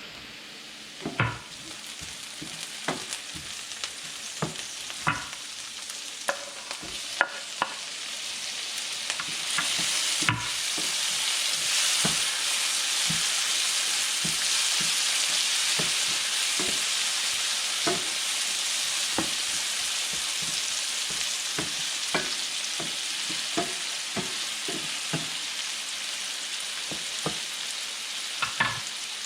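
Food sizzling in hot oil in a pan while it is stirred, with a cooking utensil clicking against the pan many times. The sizzle grows louder about ten seconds in and then holds steady.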